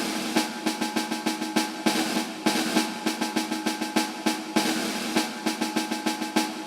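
Background music with a quick, regular drum beat over a held tone.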